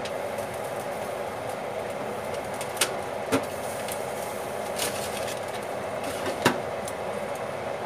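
Metal tongs clinking against a toaster oven's wire rack and foil tray a few times as chicken pieces are turned, then a louder knock about six and a half seconds in as the oven's glass door is shut. A steady hum runs underneath.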